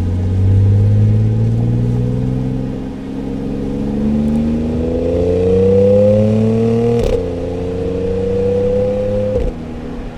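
Audi S4 B8's supercharged 3.0 V6 accelerating hard, its note rising steadily for about seven seconds. A gear change with a sharp click drops the pitch slightly, the engine pulls on in the next gear, and the sound drops away as the throttle lifts near the end.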